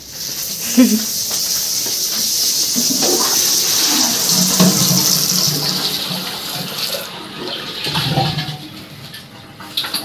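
Water rushing in a bathroom, fading out about seven seconds in.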